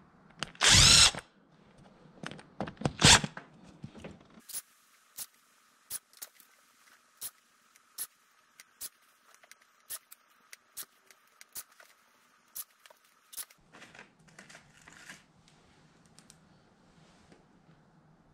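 A cordless impact driver spins up twice in short half-second runs, driving carbide-tipped screw-in tire studs into an ATV tire's rubber lugs until the socket bottoms out. A series of light, evenly spaced clicks follows for several seconds.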